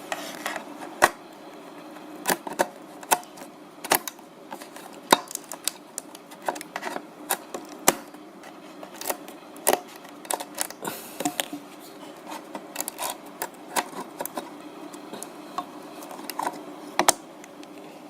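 Irregular sharp clicks and light knocks of small hard parts being handled, one or two a second and uneven in strength, over a steady low hum.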